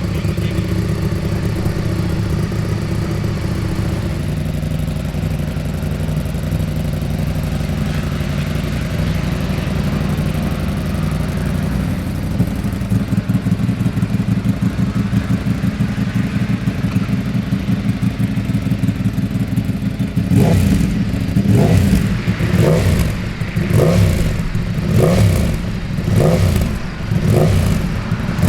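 Ducati Panigale V4 superbike's V4 engine idling steadily, then, about two-thirds of the way through, revved in a series of short throttle blips, about one a second.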